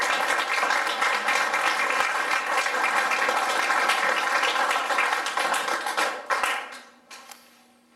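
Audience applauding: many hands clapping together, which tails off and dies away about six to seven seconds in.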